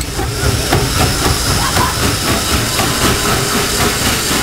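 Hunslet 0-4-0 saddle tank steam locomotive working past close by on 2 ft gauge track: a steady hiss of steam over a rhythmic exhaust and the knocking of its wheels and motion.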